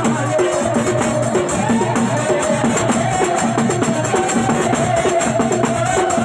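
Loud music with steady drumming and a short melodic figure repeating over and over.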